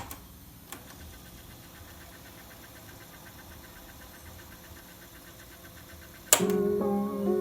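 Music playback cuts off abruptly with a click, leaving about six seconds of faint steady background noise with a light, rapid, even ticking. Then another click and the music comes back on.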